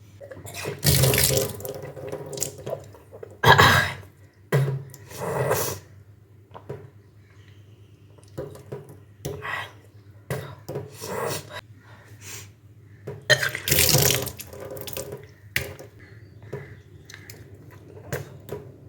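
A person deliberately vomiting up drunk salt water in repeated splashing gushes, as in kunjal kriya, the yogic stomach-cleansing practice. The biggest gushes come about a second in, around three and a half seconds and around fourteen seconds, with smaller splashes between.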